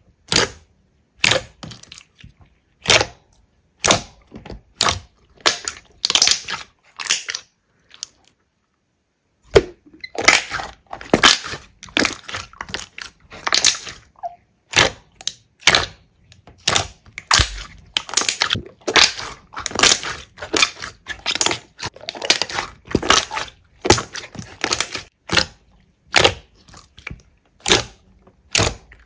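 Hands pressing and squeezing slime, with a short noisy burst of sound at each squeeze, about one or two a second. There is a silent break of about a second a third of the way through.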